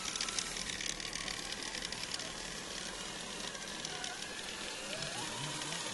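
Scale RC crawler driving through mud and brush: a steady crackling hiss of tyres on twigs and wet ground. Near the end, its small electric motor whines, rising and falling in pitch.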